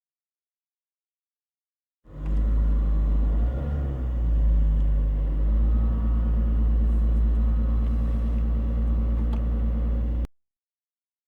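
Citroën C3 Picasso diesel engine running, cutting in abruptly about two seconds in and stopping abruptly near the end. Its note changes once, a little after three seconds in, then holds steady.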